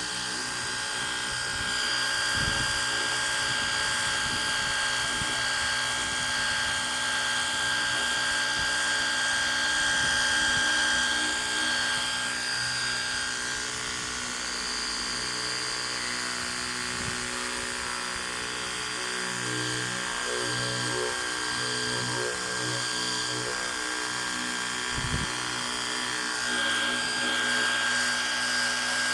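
Ryobi portable pressure washer running: the electric pump motor makes a steady high whine over the hiss of the water spray.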